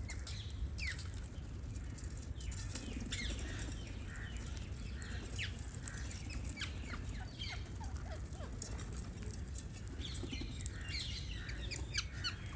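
Parrots chirping: many short, quick, falling chirps, busier near the end, over a steady low hum.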